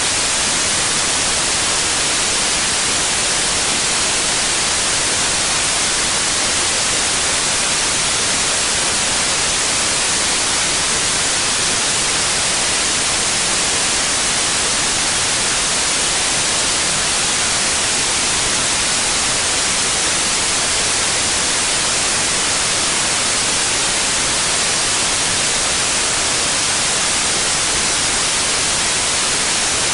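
Steady white noise: an even, unchanging hiss, strongest in the high end, with no changes or events.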